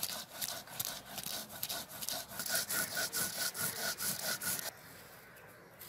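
Stone roller rubbed quickly back and forth on a flat grinding stone (shil-nora), crushing whole spice seeds with a gritty, rasping scrape. There are about four or five strokes a second, and they stop about a second before the end.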